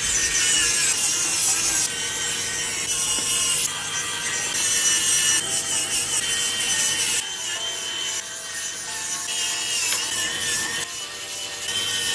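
Pen-style electric screwdriver driving small screws into a laptop's plastic bottom case, its motor whining in a series of short runs of a second or two, the pitch shifting from one run to the next.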